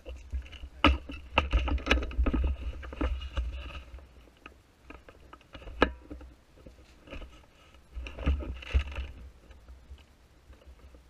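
Handling noise on a rifle-mounted action camera: scraping and rustling, with sharp clicks, about four of them in the first half, over a low rumble.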